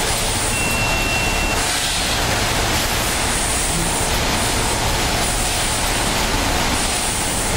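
A row of vertical form fill seal packaging machines running on a snack bagging line: a loud, steady mechanical and air noise with a high hiss that comes and goes. A brief high beep about half a second in lasts about a second.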